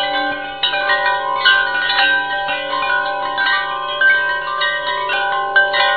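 Chimes ringing: many struck metal tones that hang on and overlap, with fresh strikes every half second or so, over a low steady tone.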